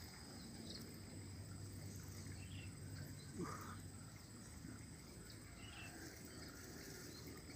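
Faint outdoor ambience of insects trilling steadily at two high pitches, with a few soft, short chirps or calls.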